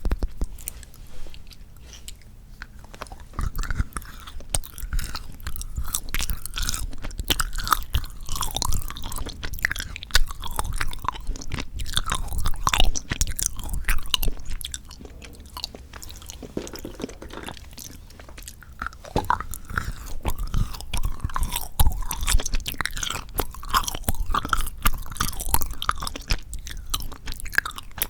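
Chocolate being chewed right at a sensitive microphone: sticky, wet mouth sounds with frequent small crunches and clicks.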